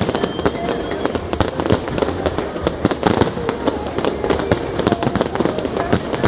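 Fireworks display going off continuously: a dense run of sharp bangs and crackles, several a second, with no pause.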